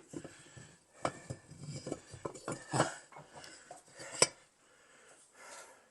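Metal parts of a Mazda 13B rotary engine clinking and knocking as they are handled and set down during teardown, a few sharp knocks with the loudest about four seconds in.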